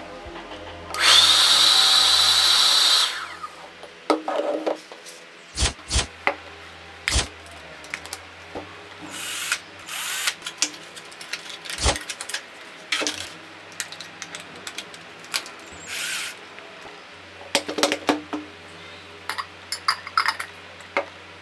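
A small electric motor whirring steadily for about two seconds, rising in pitch as it starts. It is followed by scattered sharp clicks and knocks of objects being handled and set down on a wooden board.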